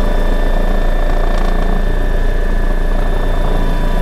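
MBB Bo 105 helicopter heard from inside the cockpit in flight: the steady high whine of its two turbine engines over the dense, fast-beating low rumble of the four-blade rotor.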